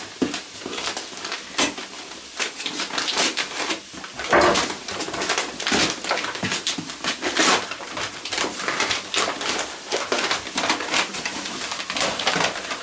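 Brown wrapping paper rustling and crinkling as a parcel is handled and unwrapped, with irregular crackles.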